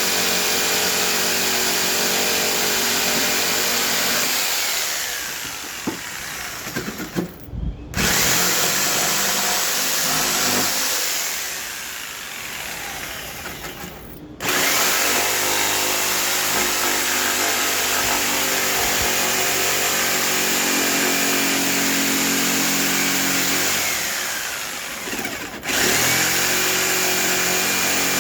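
Electric power saw running steadily with a motor hum, winding down three times and coming back on abruptly.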